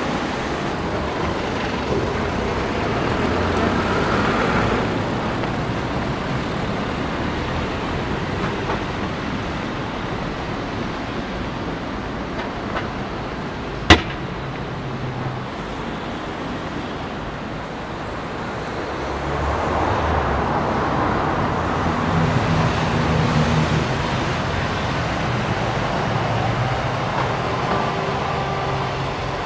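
Road traffic in a city street: a steady hum of car and bus engines and tyres that swells twice as vehicles pass, with one sharp click about halfway through.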